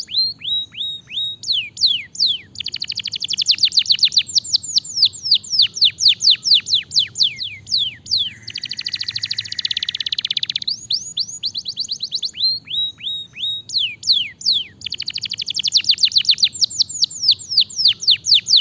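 Domestic canary singing: fast trills of quick downward-sweeping notes, broken by a harsh buzzing rattle about eight seconds in, after which the trills resume.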